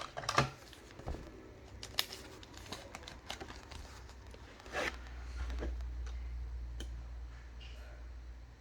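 Trading cards and pack packaging being handled: scattered small clicks and rustles, with a low hum coming in about five seconds in.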